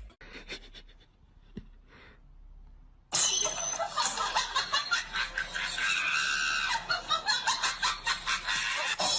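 Quiet with a few faint clicks, then about three seconds in, loud laughter starts suddenly and keeps going in choppy bursts.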